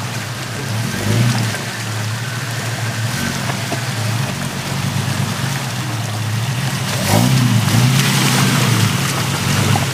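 Lifted Jeep Cherokee XJ's engine running under load as it crawls through a rocky creek, picking up revs about a second in and again about seven seconds in. Water splashes around the tyres, louder near the end as the Jeep passes close by.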